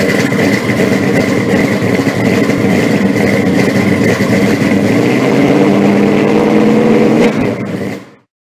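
A car engine running loud and steady with a high whine, its pitch climbing as it revs about five seconds in, then fading out near the end.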